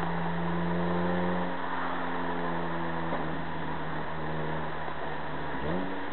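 Honda Prelude 2.2 VTEC's four-cylinder engine heard from inside the cabin while cruising at steady revs. Its note eases slightly lower about a second and a half in, then climbs quickly in pitch near the end as the revs rise.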